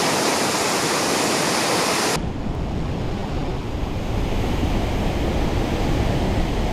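Waterfall roaring as a loud, steady hiss; about two seconds in it changes abruptly to a muffled low rumble, with the high hiss mostly gone.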